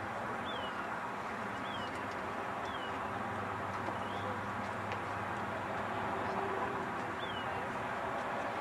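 Outdoor ambience: a steady low background hum, with a small bird giving short high chirps that slide down in pitch, five times at irregular intervals.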